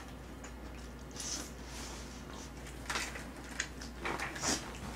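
A person eating: quiet chewing of a mouthful of food, with a few short, faint crackles and clicks about three and four seconds in.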